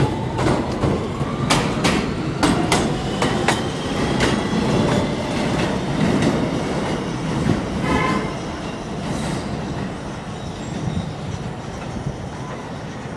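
R160B subway train pulling out of an elevated station, its wheels clicking over rail joints under a rising whine. The rumble fades away after about eight seconds.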